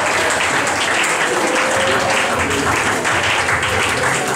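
Audience applauding as a stand-up comedy set ends.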